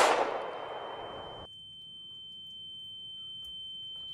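The tail of a gunshot dies away over the first second and a half and then cuts off abruptly, leaving a steady high-pitched ringing tone, the ear-ringing effect that follows the shot.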